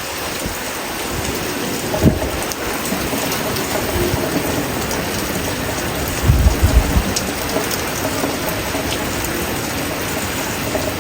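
Heavy hurricane rain falling steadily, a dense even hiss, with short low rumbles about two seconds in and again a little past the middle.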